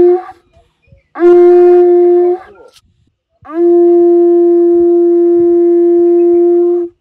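Animal-horn trumpet blown in loud, held blasts at one steady pitch, each scooping up into the note. The tail of one blast comes right at the start, then a blast of about a second, then a long blast of about three and a half seconds.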